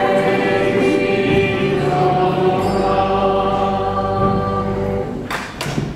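Voices singing together in held chords, a sung liturgical response in church that ends about five seconds in. A brief scuffling noise follows near the end.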